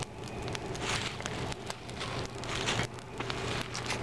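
Wood fire crackling and hissing, with a dense scatter of small sharp pops.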